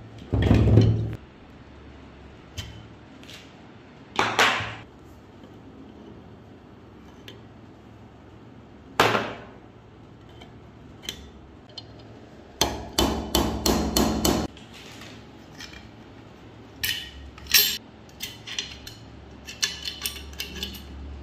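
Metal knocks and taps from AK-47 trigger-group parts being worked into the steel receiver. Single loud strikes come about half a second in, at about four seconds and at about nine seconds, then a quick run of about seven taps, then lighter clicks near the end.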